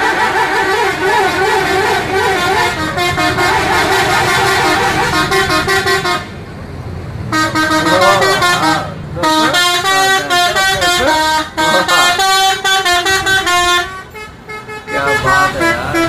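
Indonesian tour bus 'telolet' horns playing quick melodies of short, stepped notes, several tones sounding together. They pause briefly about six seconds in and again near the end.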